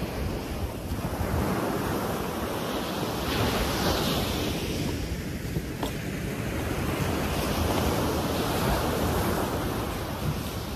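Ocean surf breaking and washing up the beach, swelling and ebbing every few seconds, with wind buffeting the microphone.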